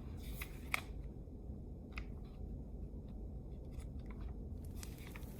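Wood fire burning: scattered sharp crackles and pops from the logs over a low, steady rumble.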